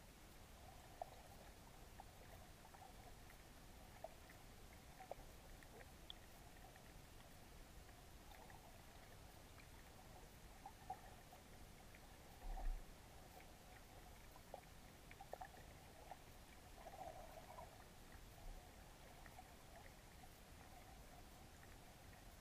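Faint underwater ambience in a lake, with scattered small clicks and ticks and one short low thump about twelve seconds in.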